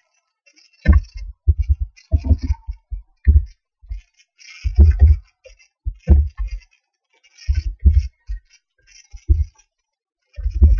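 Computer keyboard typing in irregular bursts of keystrokes with short pauses between them, each keystroke landing with a dull low thump.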